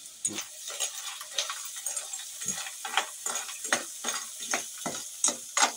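A spoon stirring shelled freshwater snails (siput sedut) in a frying pan, the shells and spoon clattering against the pan in quick strokes, about three a second, over a steady sizzle.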